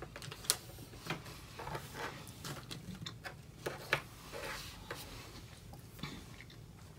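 Closed-mouth chewing of a chewy jelly sweet: irregular small wet clicks and smacks, a few each second, the loudest about half a second in and again near four seconds.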